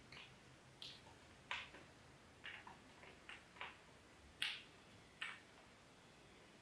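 Small cardboard jigsaw puzzle pieces being picked up and set down on a tabletop while sorted by colour: about ten faint, irregular light clicks and taps, the sharpest about a second and a half in and again about four and a half seconds in.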